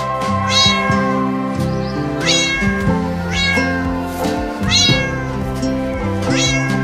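Cat meowing five times, short calls that rise sharply in pitch, over steady background music.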